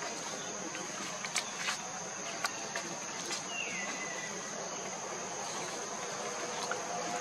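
Steady high-pitched insect drone, with scattered faint clicks and one short falling whistle about three and a half seconds in.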